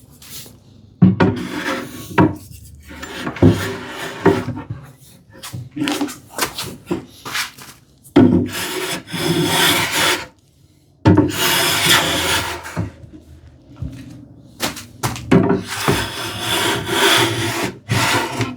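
Hand plane cutting along the edge grain of ash boards in a series of long strokes, about six, with short pauses between them, to take down a slight belly and bring the case's back edges flush.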